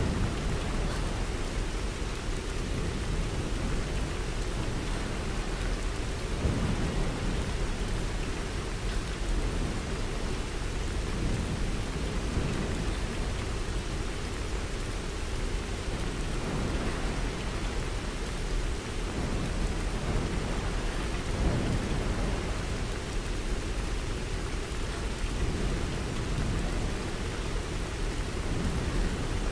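Steady rain falling, an even hiss with a deep low rumble underneath.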